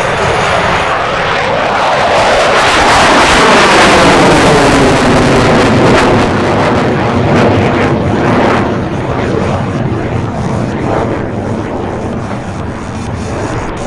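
Aircraft flying past, its engine note falling in pitch as it passes, loudest a few seconds in and then easing off.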